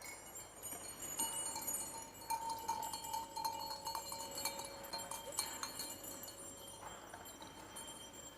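Livestock bells on grazing sheep and goats clinking and tinkling irregularly, busiest in the first few seconds and thinning out near the end.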